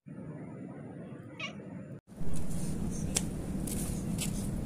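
A few short, breathy meows from a tabby cat that has lost its voice, coming out hoarse and nearly toneless. After a cut about halfway, a steady low rumble runs underneath.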